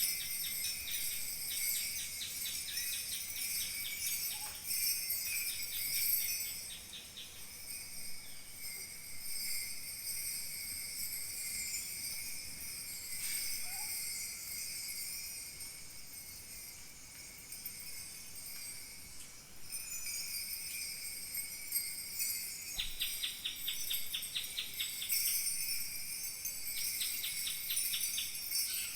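Kaskawillas, Mapuche bronze bells, shaken in a continuous high jingling that imitates falling water. Runs of fast, even shaking come at the start and again near the end, with a softer stretch in the middle.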